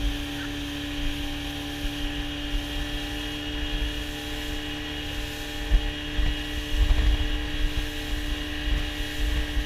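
Boat's outboard motor running steadily at speed, a constant drone, with wind gusting on the microphone as the boat races along.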